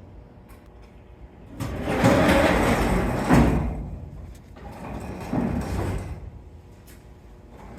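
Two long scraping, sliding sounds of metal parts being worked loose, the first louder and lasting about two seconds, the second shorter and fainter.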